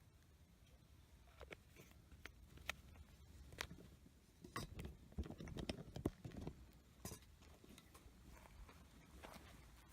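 Faint scattered clicks and light knocks of camp cooking gear being handled, with a busier cluster of small knocks about halfway through.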